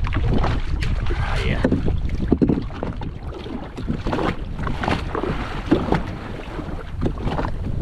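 Wind buffeting the microphone with a heavy low rumble, over water splashing and slapping irregularly against the hull of a jet ski on a choppy sea.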